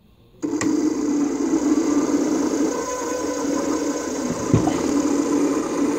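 Small three-phase induction motor fed by a Mitsubishi A700 inverter in sensorless vector torque control, switching on abruptly about half a second in and then running with a steady electric hum and a high whine from the drive. A single knock about four and a half seconds in, as the motor shaft is gripped by hand against the drive's torque.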